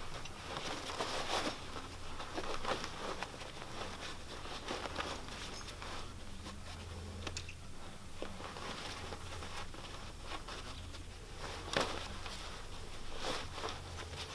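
M7 cloth bandolier being packed by hand: rustling fabric with scattered small clicks and taps, and one sharper click about three quarters of the way in, over a low steady hum.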